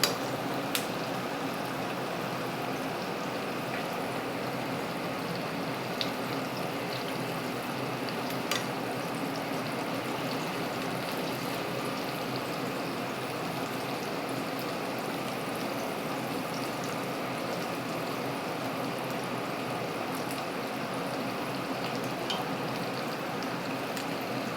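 Flour-coated chicken skin deep frying in hot oil: a steady sizzle with a few sharp pops of spattering oil. The skin is almost done, frying toward golden brown and crispy.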